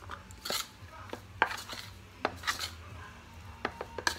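Metal fork clicking and scraping against a bowl while a damp tuna and flour batter is stirred and worked by hand. There are irregular sharp clicks and a few short rustling bursts.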